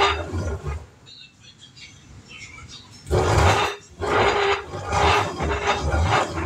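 Hand-cranked metal corn grinder milling fresh corn kernels with a loud groaning grind that surges with the turns of the crank and eases off for about two seconds after the first second. The grinding plates are set tight, and the mill is new, which its owner gives as the reason it sounds like this.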